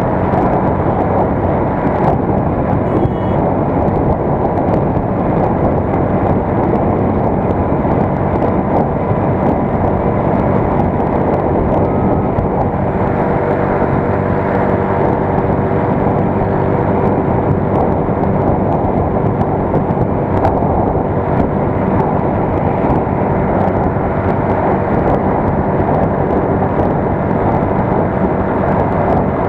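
United US 125 motorcycle's single-cylinder four-stroke engine running steadily while riding along at road speed.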